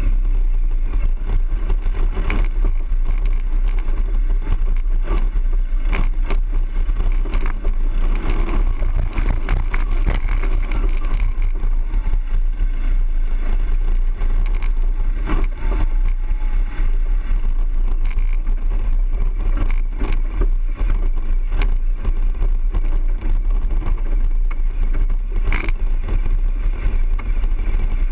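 BMW R 1200 GS motorcycle riding along, its flat-twin boxer engine running under a steady rush of road and wind noise, with a few sharp knocks.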